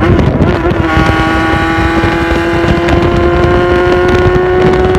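Yamaha XJR400's air-cooled inline-four engine revved hard and held at high revs as throttle 'call' practice, its pitch climbing slowly and steadily after a brief dip just after the start.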